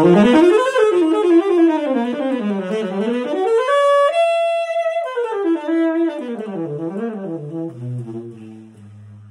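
Saxophone played with a Silverstein ALTA AmbiPoly synthetic reed: a melodic phrase of quick runs climbs to a held high note about four seconds in, then winds back down to a low note that fades near the end.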